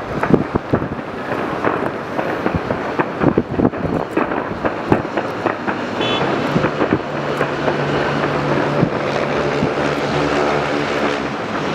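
Aerial fireworks going off in rapid, dense bangs and crackles. About halfway through, a steady low engine-like drone joins and continues under the thinning bangs.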